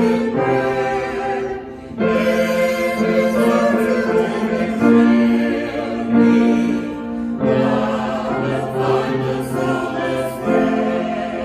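Choir singing a slow hymn with instrumental accompaniment, sustained chords shifting every second or two.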